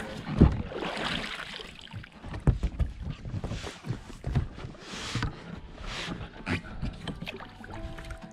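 A heavy thump about half a second in as a man settles into an inflatable rowing boat, then oars dipping and splashing in river water with strokes about a second apart, with small knocks from the oars in their mounts.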